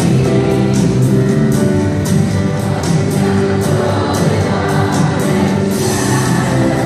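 A choir singing with band accompaniment over a steady beat.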